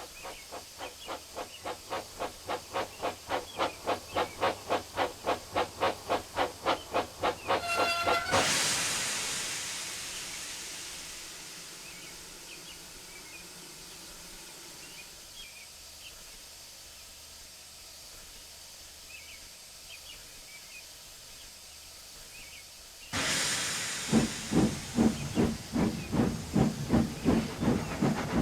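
Steam locomotive chuffing, the exhaust beats growing quicker and louder as it gets under way, then a short whistle blast and a burst of escaping steam that fades to a quiet hiss. About 23 seconds in a loud rush of steam starts and quick chuffing resumes.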